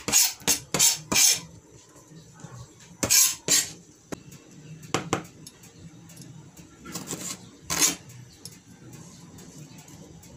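Kitchen knife cutting tomatoes on a plastic cutting board. The blade strikes and scrapes the board sharply, in short irregular bunches with pauses between.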